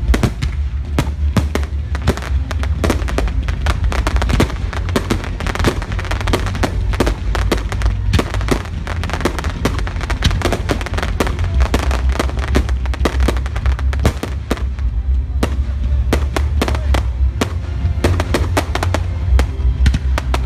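Fireworks display: a dense, unbroken run of bangs and crackles, many a second, with music playing underneath.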